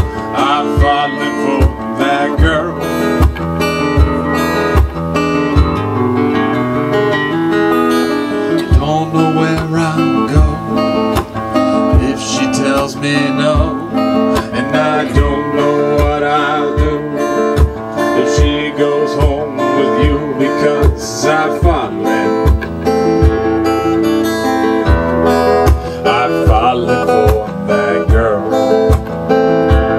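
Acoustic guitar strummed over a steady low kick-drum beat, about one thump every two-thirds of a second, from a foot-played suitcase drum, with a man's singing voice in places. The kick drops out for a couple of seconds about six seconds in, then comes back.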